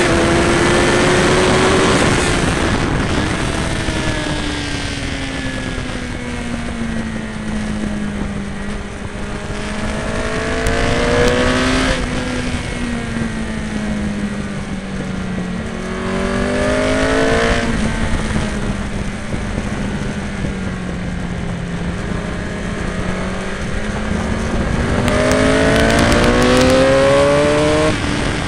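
Onboard sound of a high-revving sportbike engine at speed on a race track: its note climbs steadily under throttle and then drops back sharply, about three times, as the rider shifts or shuts off for a corner. Loud wind rush on the microphone runs under the engine throughout.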